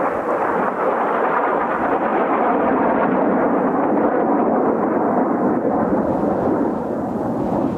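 Jet roar from Kawasaki T-4 jet trainers' turbofan engines as the formation flies past, a steady rumble whose higher part fades from about halfway through as it moves off.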